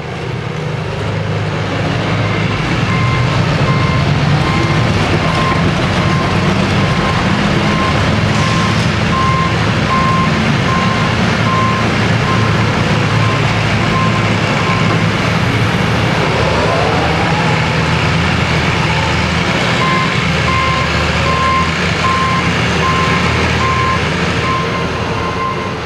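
Antique farm tractor engine running hard under steady load as it drags a weight sled down a pulling track. Repeated electronic beeps at a single pitch sound over it for much of the pull, stop for a few seconds past the middle, then resume near the end.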